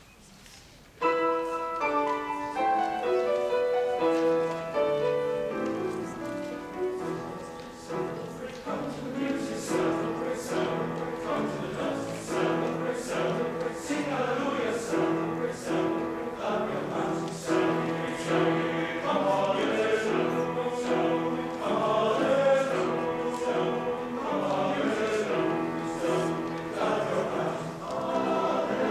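Large men's choir singing in parts with piano accompaniment, starting about a second in.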